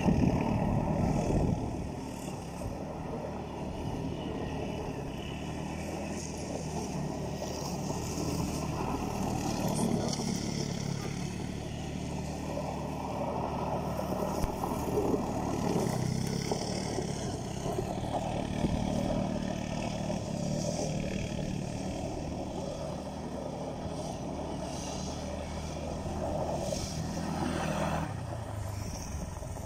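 Kymco MXU 400 4x4 quad's single-cylinder engine revving up and down as it drifts on gravel, its pitch rising and falling repeatedly. It is loudest in the first second or so.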